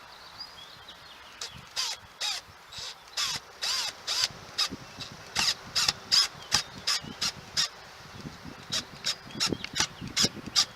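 Crows cawing over and over in a rapid, irregular string of short, harsh calls, starting about a second and a half in.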